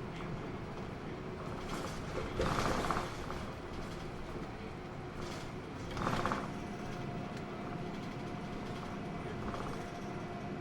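Interior running noise of a Hino Blue Ribbon II city bus under way, a steady hum of engine and road noise. Two short, louder rushes of noise come about two and a half seconds in and again about six seconds in, and a faint steady whine joins the hum near the end.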